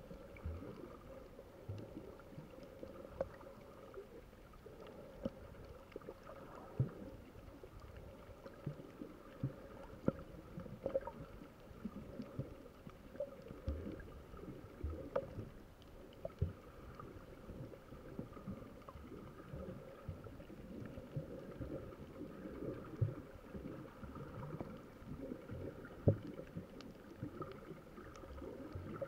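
Muffled underwater sound picked up by a camera held below the surface: water gurgling and moving around the camera, with a faint steady hum and many irregular soft knocks.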